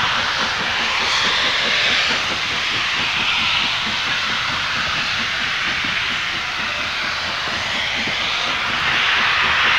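J94 'Austerity' 0-6-0 saddle tank steam locomotive working hard up a steep 1-in-50 gradient with a heavy train: a rapid, steady exhaust beat under a loud, rushing hiss of steam.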